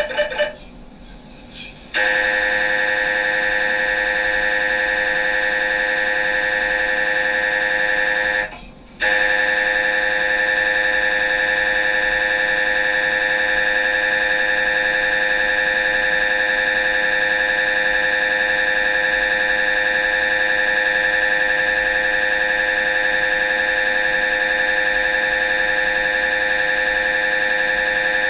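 MRI scanner's gradient coils sounding during a scan: a few rapid pulses at the very start, a short quiet break, then a loud steady electronic buzz from about two seconds in, broken once by a brief gap near nine seconds.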